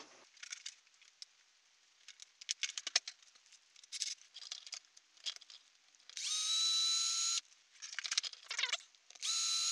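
Clicks and rattles of plastic parts being handled, then a small electric drill spinning up and running twice, about a second each, drilling a hole through the toy RC car's plastic battery box for the battery connector wires.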